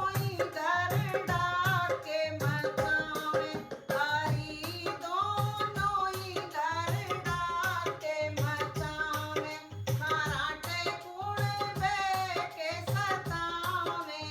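A woman singing a comic folk song in a melismatic style, accompanied by a hand drum keeping a steady beat.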